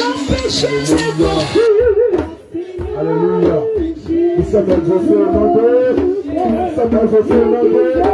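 Worship song sung by a woman into a microphone, amplified through loudspeakers, her voice gliding and bending through each phrase, with a low, regular beat underneath.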